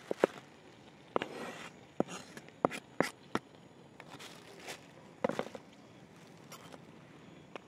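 A knife cutting salad vegetables on a board: irregular sharp knocks and clicks with some scraping, several close together in the first three and a half seconds and again around five seconds in.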